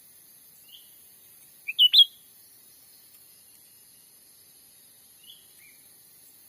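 Cucak ranting calling in short chirps. There is a soft note just under a second in, a loud run of three quick notes about two seconds in, and two soft notes near the end, all over a faint steady high insect hum.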